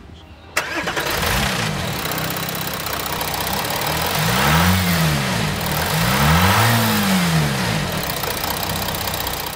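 Toyota D-4D turbo-diesel engine starting about half a second in. It then runs and is revved up and down a few times, with two larger rises in the middle.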